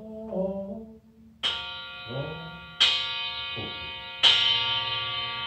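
Male voice chanting in Japanese ends, then a Buddhist bowl bell (kin) is struck three times, about a second and a half apart, each stroke ringing on with a long, many-toned ring that overlaps the next.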